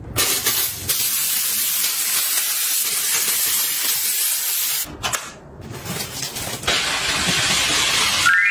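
Handheld steam cleaner jetting steam in a loud, steady hiss, broken once about five seconds in before the hiss resumes.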